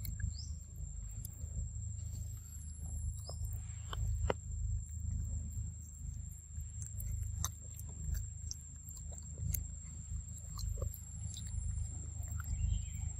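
A macaque chewing and biting into soft ripe fruit close to the microphone: scattered wet clicks and smacks over a steady low rumble, with a constant high-pitched whine.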